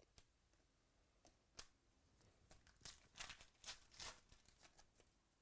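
Faint handling of trading cards: soft swishes and clicks as cards are slid and flipped through a pack, busiest in the middle.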